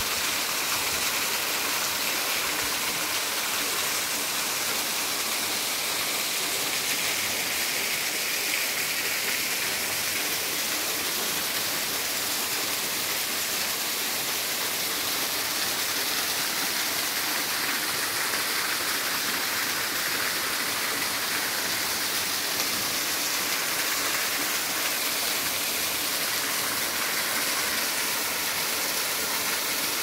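A small waterfall spilling over rock into a shallow pool: a steady, even rush of splashing water.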